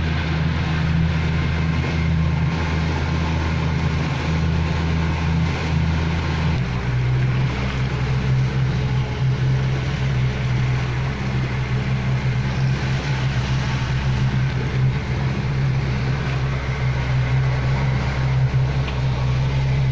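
Motorboat engine running steadily with a low hum, over a rush of wind and water noise; its note changes abruptly about six and a half seconds in.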